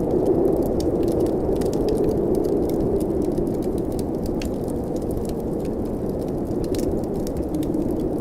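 Steady blizzard wind noise, with a fireplace crackling over it in frequent small pops and clicks.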